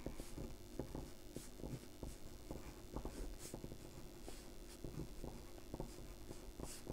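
Yellow coloured pencil scratching on paper in short, quick strokes as small stars are drawn: faint, irregular ticks and scratches.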